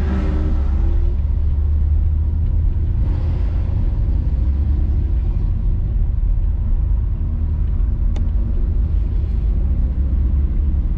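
A Lotus sports car's engine running at low revs as the car creeps along at about 10 mph, heard from inside the cabin as a steady low rumble. There is one short click about eight seconds in.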